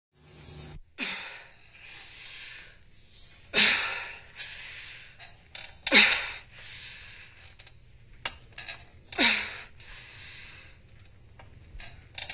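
A woman breathing hard with effort while doing pull-ups: four loud, sharp exhalations a few seconds apart, each with a short voiced note that drops in pitch, and quieter panting between them.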